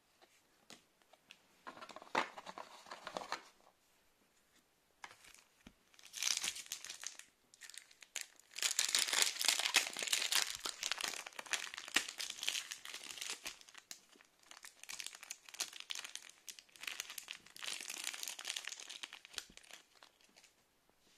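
Crinkling of a counterfeit Pokémon booster pack's foil wrapper being handled and torn open, in several bursts, the longest lasting about five seconds.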